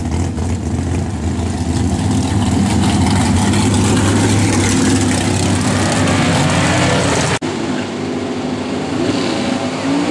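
Drag race car engines running loudly at idle as the cars roll along. After a sudden cut about seven seconds in, an engine revs up and down near the end as a car starts a burnout.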